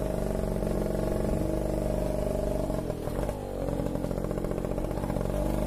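Motorcycle engine running under way. About three seconds in, the engine note drops briefly as the throttle eases, then picks up again.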